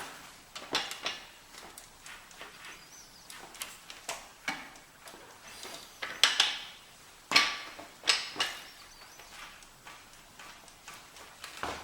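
Irregular clicks and knocks at uneven intervals, a few louder ones between about six and eight seconds in.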